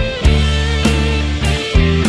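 Background music: an instrumental track with guitar, held low bass notes and regular drum hits.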